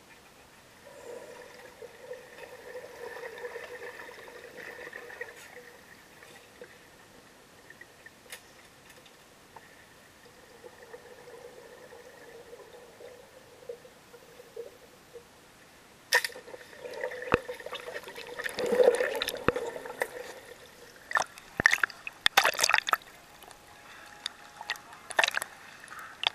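Water sounds picked up by a camera under the surface of a swimming pool: faint muffled bubbling in two spells, then from about two-thirds of the way in, louder splashing and dripping with sharp clicks as the camera breaks the surface.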